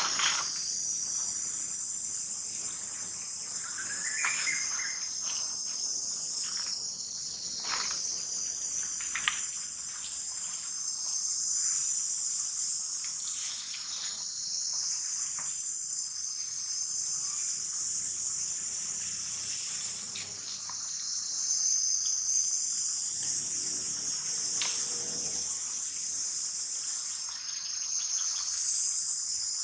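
Steady high-pitched insect chorus, with scattered soft clicks and rustles of dry leaves and a brief chirp about four seconds in.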